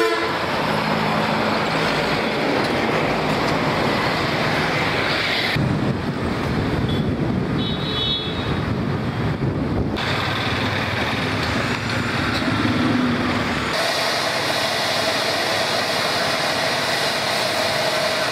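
Road traffic noise from passing vehicles on a town street. The background changes abruptly three times as the shots cut.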